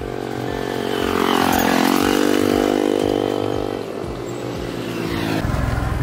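Small motorbike engines on the road: one engine's note dips and rises, then holds a steady drone for a couple of seconds. Near the end another motorbike approaches, its low engine sound growing louder.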